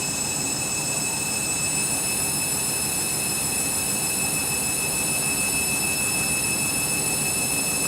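Candy Grand'O Vita washing machine running steadily with a constant high whine, sounding clogged up with excess suds during a suds lock.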